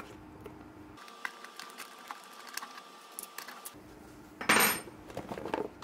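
Light clicks of a small wrench and loose nut as the control knob is taken off a welding helmet, then a short, loud clatter about four and a half seconds in.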